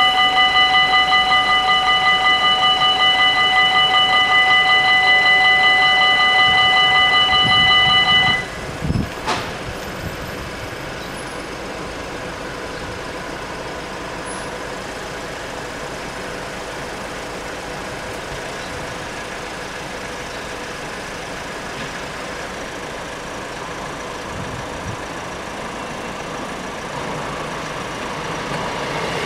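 Level-crossing warning bells ringing steadily with a rapid pulse while the barriers lower, stopping suddenly about eight seconds in, followed by a couple of knocks. After that there is only a steady low background, and the noise of the approaching train builds near the end.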